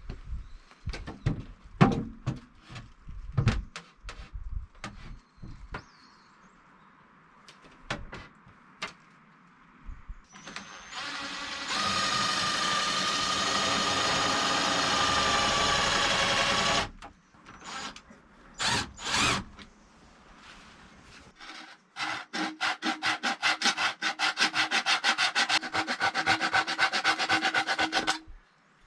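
Knocks and clatter of wood being handled, then a HIKOKI cordless impact driver: its motor spins steadily for about five seconds, then it hammers in fast rattling pulses for about six seconds as it drives a screw into wood.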